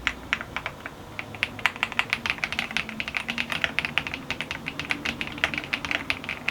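Typing on a Valkyrie VK87 Merlin mechanical keyboard: rapid, continuous key clacks, with a short lull about a second in.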